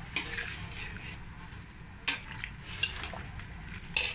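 A utensil stirring vegetables being blanched in a stainless steel wok of boiling water, clinking sharply against the pan four times, loudest near the end.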